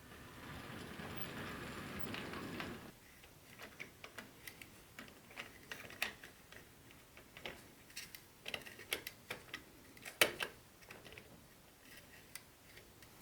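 Hands handling packaging and small plastic parts: a rustling slide for about three seconds, then scattered light clicks and taps, with one louder knock about ten seconds in.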